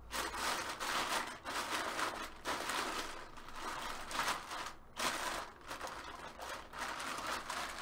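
Clear plastic bag crinkling and rustling as hands work a camera out of it, in uneven handfuls with a few short breaks.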